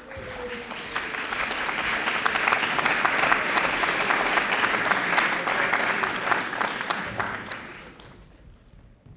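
Audience applauding in a theatre. The clapping swells over the first two seconds, holds, and dies away about eight seconds in.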